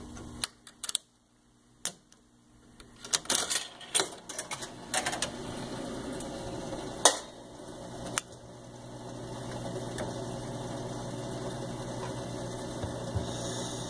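1940 Wurlitzer 700 jukebox accepting coins and a selection with a few sharp clicks, then its record-changing mechanism cycling with clicks and clunks as it brings the chosen record onto the turntable. The loudest knocks come about seven and eight seconds in, followed by a steady motor hum as the record gets ready to play.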